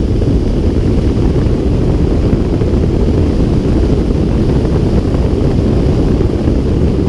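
Steady rushing airflow noise of a glider in flight, heard from inside the cockpit, a low rumble that stays even throughout.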